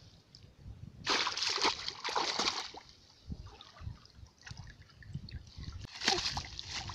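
Shallow muddy water splashing and sloshing as hands and a bamboo basket fish trap are worked through it, with two louder bursts of splashing, about a second in and again near the end.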